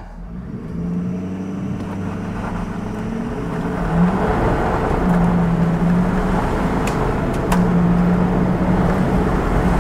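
Ford 6.7 L Power Stroke V8 turbo-diesel in a 2014 F-250, heard from inside the cab, pulling hard at full throttle from a standstill on a freshly fitted Ford Performance Garrett single turbo. The engine note climbs and grows louder, stepping twice as the automatic shifts up.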